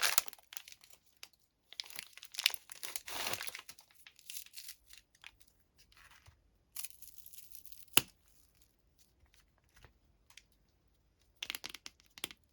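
Plastic candy wrappers crinkling and being torn open in separate bursts with short pauses between them, and one sharp click about eight seconds in.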